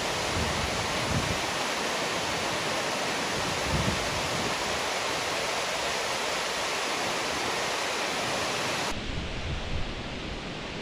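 Waterfall rushing through a rock gorge, a steady dense hiss of falling water. About nine seconds in it cuts to wind buffeting the microphone, with the water only faint behind it.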